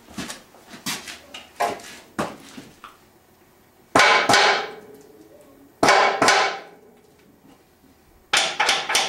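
Steel earth-anchor plate being struck and knocked straight, metal on metal. A few light knocks come first, then loud ringing clanks about four and six seconds in, and a quick run of blows, about five a second, near the end.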